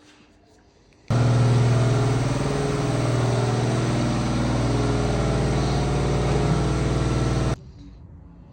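2019 Volkswagen Golf GTI's 2.0-litre turbocharged four-cylinder petrol engine running steadily with a loud exhaust note. The sound starts abruptly about a second in and stops abruptly about a second before the end.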